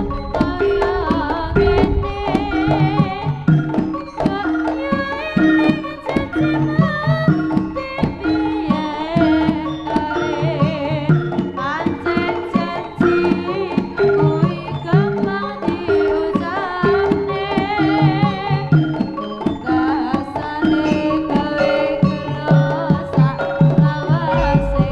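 Live Javanese jaranan ensemble music: hand drums beat a busy rhythm under repeated short pitched chime notes, with a wavering high melodic line over the top.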